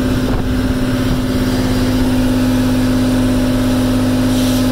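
Fishing boat's engine running at a steady speed, a loud, even hum.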